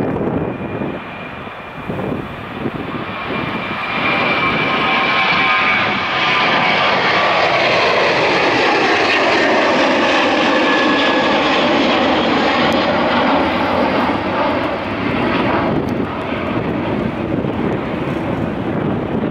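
Boeing 737-800's CFM56-7B turbofan engines at takeoff thrust as the jet climbs out past: loud, steady jet engine noise that builds over the first few seconds, with a fan whine and sweeping tones that slide down in pitch as it goes by, easing slightly near the end.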